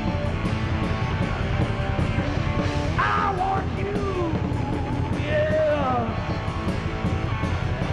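Heavy metal band playing live: distorted electric guitar over bass and drums, with steady cymbal ticks. Lead lines bend up and down in pitch about three seconds in and again about five seconds in.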